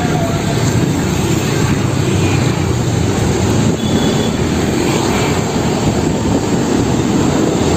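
A Mercedes-Benz OH1526 coach's diesel engine running as the bus pulls out and turns past, a steady, loud, low rumble mixed with road noise.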